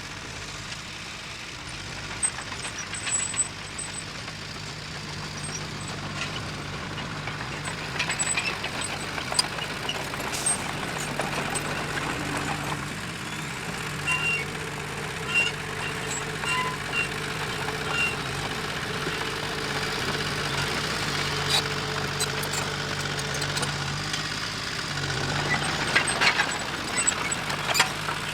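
Diesel engine of earth-moving machinery running steadily, with scattered metallic clanks and knocks, most of them clustered near the end.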